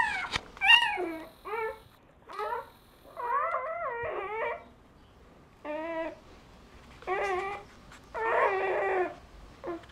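Newborn Doberman puppies squealing and whimpering as they nurse: a string of about ten short, high cries, most falling in pitch, with two longer wavering ones about three seconds in and near the end.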